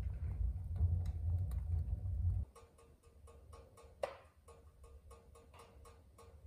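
Wood fire crackling inside a wood-burning stove, with irregular sharp pops a few times a second and a louder pop about four seconds in. For the first couple of seconds a loud low rumble lies over it and then stops abruptly.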